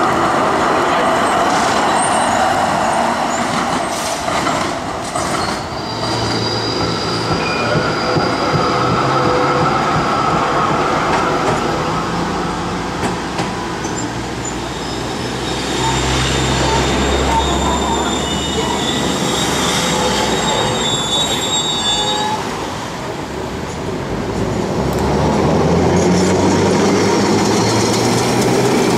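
Melbourne trams running through a stop: B1-class tram 2001 passing at the start, then a W-class tram rolling past near the end, with steel wheels rumbling on the rails. High wheel squeal comes and goes, longest about halfway through, with a low motor rumble under it.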